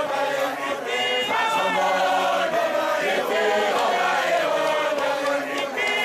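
Zion Christian Church mokhukhu group of men singing a chant-like song together in harmony, many male voices.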